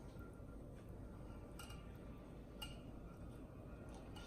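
Mostly quiet, with a few faint clicks about a second apart over a low steady hum.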